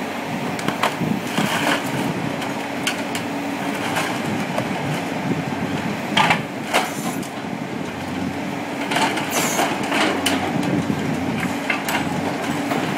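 Scrap-yard grapple crane running with a steady hum, with repeated crashes and crunching of metal as its orange-peel grapple drops motorcycles onto a steel plate and crushes them. The loudest crashes come about six seconds in.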